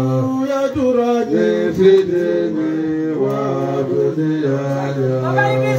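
Several men's voices chanting together in an Islamic devotional chant, holding long notes that shift pitch now and then.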